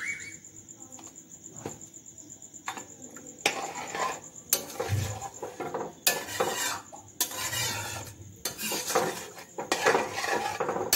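A metal spatula stirring a wet pea-and-potato curry in a steel wok, scraping and clinking against the pan in repeated strokes from about three and a half seconds in, after a few light clicks.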